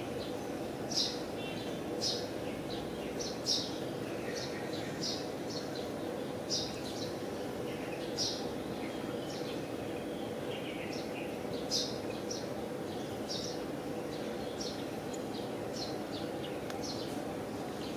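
Small birds chirping: short, high chirps about once or twice a second at irregular spacing, over a steady low background hum.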